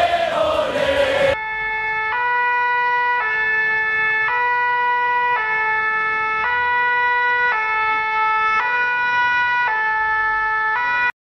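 Two-tone ambulance siren, the French 'pin-pon', alternating between a low and a high note about once a second and cutting off abruptly near the end. It takes over from the fading end of dance music about a second in.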